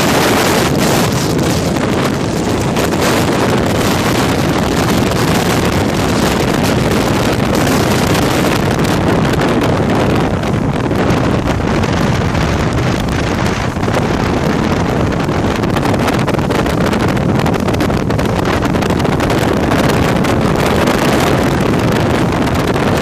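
Steady wind buffeting the microphone over a motorboat running on open water.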